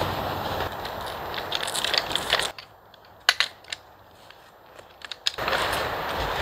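Crinkling and rustling of a nylon stuff sack being handled, full of small crackles. It stops abruptly partway through, leaving a quieter stretch with a few sharp clicks of gear, then the rustling resumes near the end.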